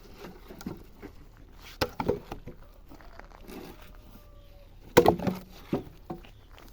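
Firewood logs knocking and cracking against each other as pieces are pulled off a load of wood. There are a few separate sharp knocks, a pair about two seconds in and the loudest about five seconds in.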